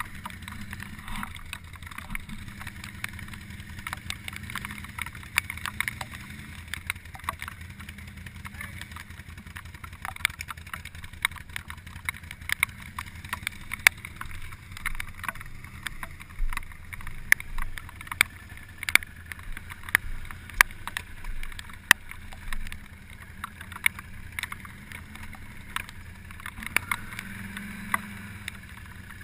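ATV engine idling steadily, with many irregular sharp ticks over it.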